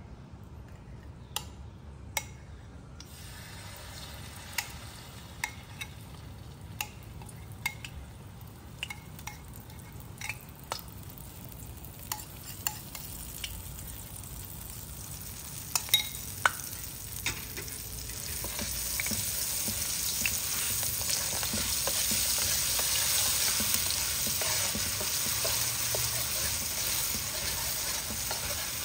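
Oil heating in a wok with scattered clicks and ticks. About halfway through, curry paste made from curry powder and water is tipped in with a few sharp clinks. A sizzle then swells up and holds as the paste fries in the hot oil and a metal spatula stirs it.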